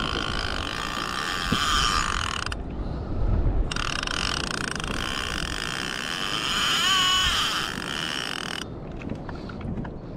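Fishing reel whirring in two long runs, broken by a short pause about two and a half seconds in, with the pitch wavering around seven seconds before it stops. A low rumble of wind and water lies beneath.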